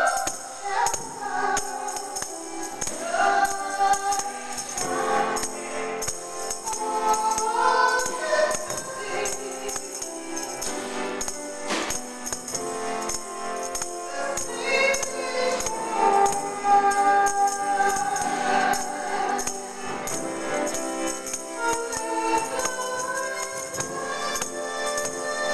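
Church choir singing a hymn, a woman's voice leading at the microphone, accompanied by a strummed acoustic guitar and a steady jingling percussion beat.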